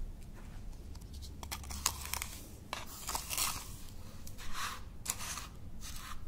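Metal spoon digging and scraping through white granular powder in a clear plastic tub, a run of short, irregular scraping strokes with small clicks, heaviest in the first half and then in a few separate strokes.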